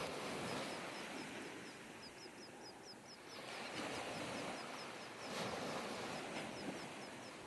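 Surf washing up on a sandy beach, a steady hiss that swells a couple of times. Through the first five seconds or so a bird gives rapid, high, repeated chirps, about five a second.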